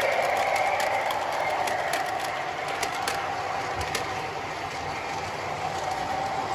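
MTH O-gauge model subway train running on the track: a steady motor whine and wheel rumble that fades as the train moves away, with scattered clicks over the rail joints in the first few seconds.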